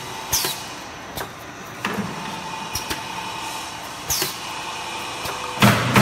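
Semi-automatic perfume filling and crimping machine running: a steady hum under irregular mechanical clicks and knocks, with a couple of short falling hisses. The loudest knock, with a low thud, comes near the end.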